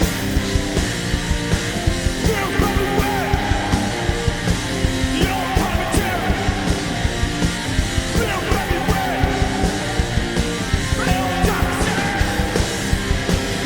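Loud punk rock song played by a band, with a driving drum beat, guitar and a singer's voice.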